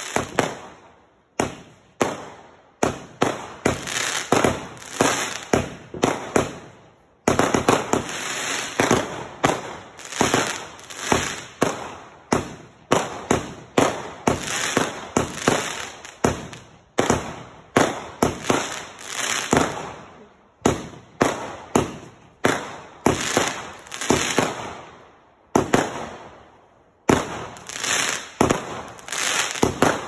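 Fireworks: aerial shots launched and bursting one after another, each a sharp bang that fades away, roughly one to two a second, with a short pause a few seconds before the end.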